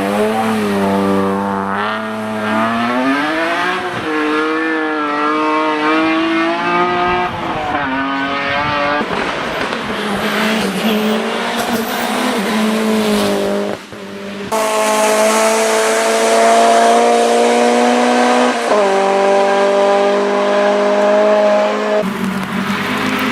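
Race car engines under hard acceleration, the pitch climbing through each gear and dropping back at the upshifts. The sound changes abruptly a few times as one car gives way to the next.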